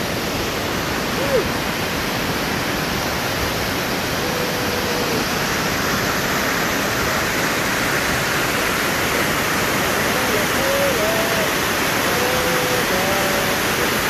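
Steady rushing of a rocky river cascade, white water pouring and splashing over granite boulders.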